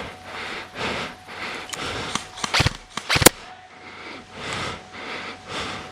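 Repeated rustling swishes of a player moving, with two sharp airsoft gun shots a little under a second apart near the middle; the second shot is the louder.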